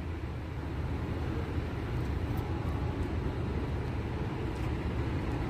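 Steady low rumble of motor vehicles running on the street.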